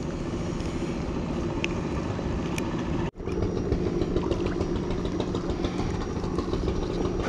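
A steady engine hum, like a motor idling, that cuts out abruptly for a moment a little after three seconds and then carries on.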